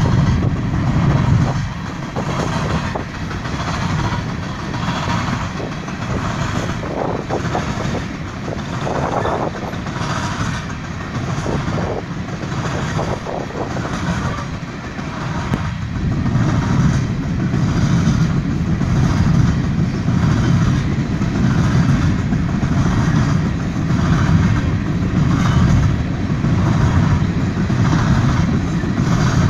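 Freight train of hopper cars rolling past, a steady rumble with the steel wheels clattering in an even rhythm about once a second.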